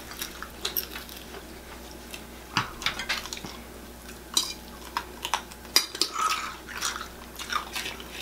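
Close chewing and crunching of crispy fried chicken eaten with the fingers: scattered short, crackly bites and clicks.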